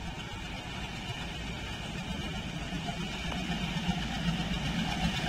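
Diesel locomotive engine running as the train approaches, a steady low drone that grows gradually louder.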